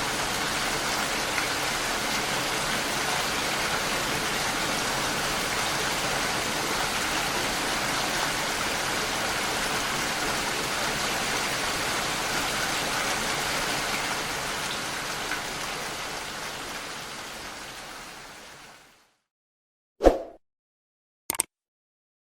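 Steady rain, fading out over the last few seconds. After a moment of silence come two short, sharp clicks.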